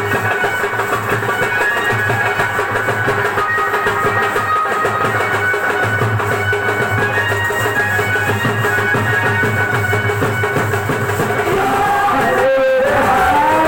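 Loud music with a busy drum beat; about twelve and a half seconds in it breaks off and a different passage with long held notes begins.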